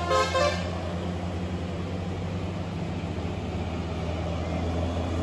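A bus's multi-tone Basuri telolet horn ends its melody about half a second in. A steady low drone of the bus engine running fills the rest.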